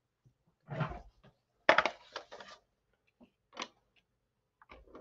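Handling noises from a plastic tape-runner adhesive dispenser and card on a craft cutting mat. A soft knock comes first, then a short rattling run of clicks, then one small click.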